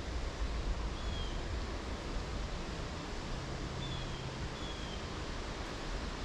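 Steady rushing outdoor noise of a flowing creek and wind on the microphone, with a few short, high, falling bird chirps.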